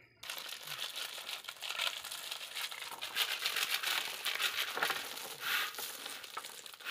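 Crushed-stone gravel poured from a hand-held pan, rattling down onto the stone soling and loose chippings as it fills the gaps before the concrete is laid. It starts just after the beginning and runs on as a dense, uneven stream of small clicks.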